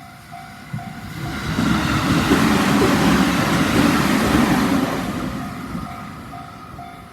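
A JR Tokaido Main Line train passing over a level crossing: wheel and rail noise swells about a second in, is loud for about three seconds, then fades. The crossing's warning bell rings in a steady, evenly repeating ding, covered while the train is loudest and heard again as it fades.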